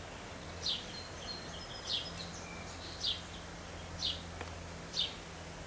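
A bird chirping repeatedly, short high falling notes about once a second, over a low steady hum.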